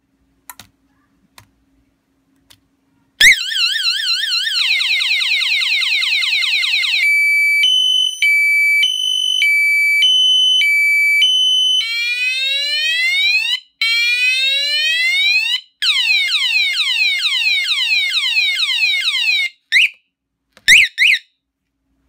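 GMJDZ motorcycle alarm siren sounding, cycling through its tones: a fast warble, then alternating high-low beeps, then repeated rising and falling sweeps. It starts with a click about three seconds in, stops a few seconds before the end, and short chirps follow.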